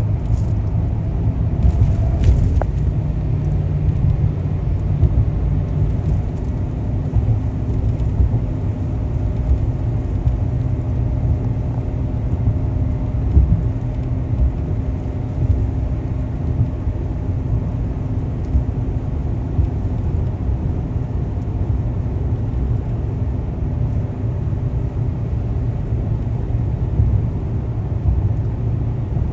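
Motor vehicle driving: a steady low rumble of engine and road noise, with a faint steady hum over it.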